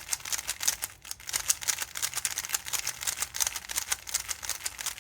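Moyu Weilong Ferrocore speedcube being turned fast, its plastic pieces clacking with each layer turn, several clicks a second, with a short pause about a second in. The cube's lube is broken in, and it sounds really nice.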